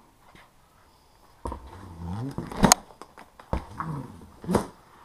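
A knife being dragged through the tape and cardboard of a large box, making squeaky, rising groans. Each groan ends in a sharp snap; the louder snap comes about halfway through, the second near the end.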